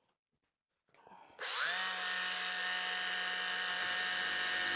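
Makita 40V XGT brushless angle grinder switched on about a second and a half in: its whine rises quickly as it spins up, then holds at a steady pitch at full speed.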